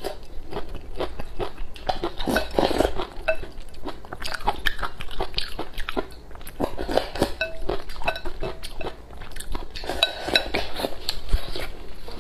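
Close eating sounds: chewing pickled chili peppers and eating rice porridge from a porcelain bowl, with chopsticks clicking against the bowl. The sounds come as many short, irregular clicks and mouth noises.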